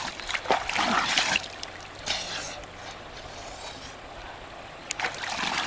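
Hands splashing shallow river water up onto the face, in a few quick splashes over the first second and a half and again near the end. A quieter trickle of the flowing river runs between.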